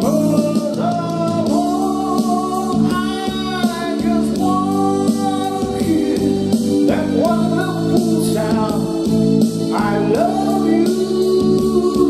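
A man's voice singing a slow song through a handheld microphone over backing music with guitar. The phrases are sung in long held notes with vibrato.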